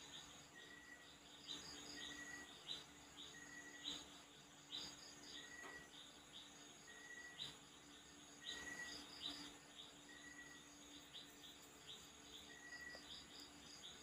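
Faint background of insects and birds: short high chirps repeating every second or so, a brief higher trill, and a short clear note about every one and a half seconds.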